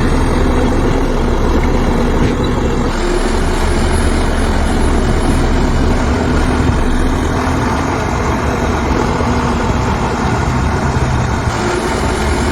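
Heavy diesel machinery engines running steadily, with the low engine note shifting slightly as they work.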